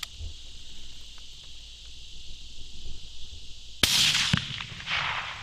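A single .22-250 rifle shot about four seconds in, a sharp crack followed by a rolling echo. Insects buzz steadily behind it.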